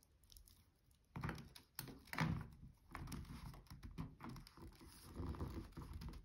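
Irregular rustling and light knocks of hands handling a rice-filled sock and tying string around it, starting about a second in.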